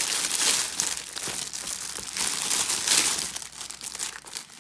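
Packaging crinkling and rustling in irregular bursts as it is torn open and handled, dying away near the end.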